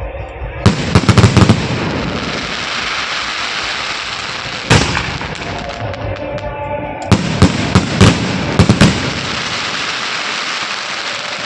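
Fireworks going off: rapid clusters of loud bangs about a second in and again from about seven to nine seconds in, with a single bang near five seconds, over a constant hiss.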